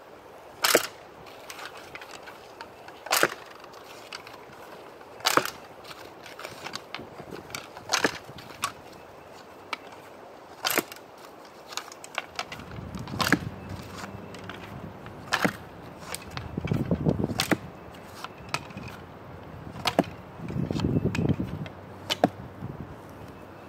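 A 45-pound black locust longbow shot over and over with a pinch-grip release: a sharp snap of the bowstring about every two to three seconds, about ten shots in all. From about halfway through, bursts of low rustling noise come between the shots.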